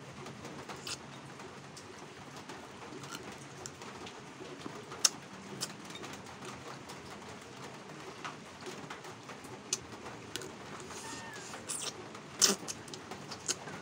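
Close-up eating sounds of a person eating fish by hand: quiet chewing and mouth noises, with a few sharp lip smacks or clicks, the loudest about five seconds in and again near the end. A steady low murmur sits underneath.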